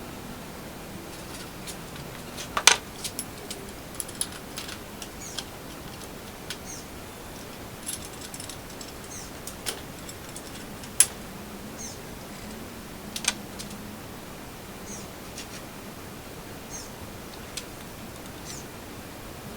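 Scattered sharp clicks and light clinks of small hard objects being handled, irregular with pauses between, a few of them much louder than the rest.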